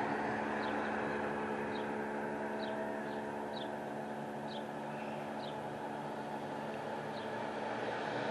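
Construction machinery engine running steadily, with a bird giving short, high, falling chirps about once a second over it.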